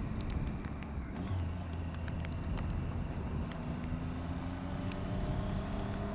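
Motorcycle engine running at a steady, moderate speed under a rush of wind noise, its pitch creeping up a little in the second half. Scattered light ticks and knocks come through as the bike rides over cracked, broken asphalt.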